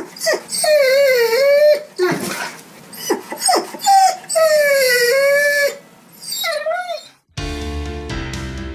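Dog whining and crying: long, wavering, high-pitched whines broken by short whimpers, a dog crying from hunger. Music starts near the end.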